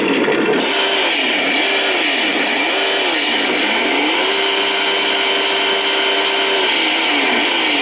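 Simulated engine sound from a 1/10-scale RC trophy truck's sound module, revving up and down several times, then holding a steady rev for about two seconds before revving again near the end. A steady high whine runs underneath.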